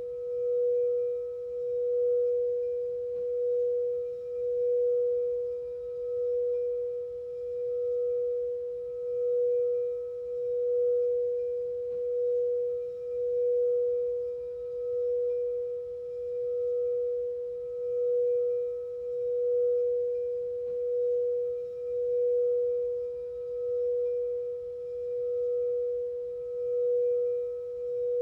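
Singing bowl sounding one sustained tone with faint higher overtones, its loudness swelling and fading evenly about every two seconds.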